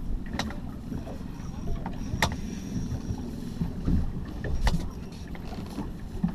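Water lapping and sloshing against the hull of a small drifting boat, with a low rumble and three sharp knocks about half a second, two seconds and nearly five seconds in.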